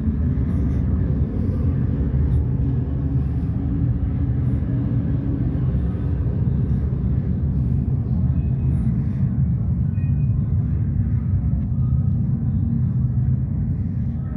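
Saturn V rocket launch rumble, played back from the Apollo launch recording over exhibit speakers just after liftoff: a loud, steady low rumble.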